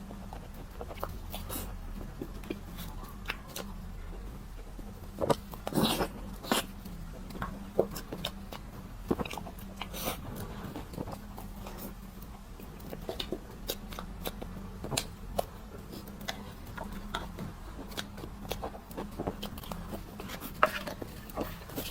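A person eating close to the microphone: irregular wet mouth clicks and smacks of chewing, a few louder bites, over a steady low hum.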